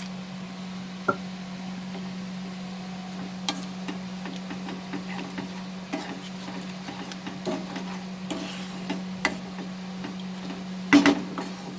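Spatula stirring pointed gourd curry in a pan, making scattered light clicks and scrapes, with a couple of louder knocks near the end, over a steady low hum.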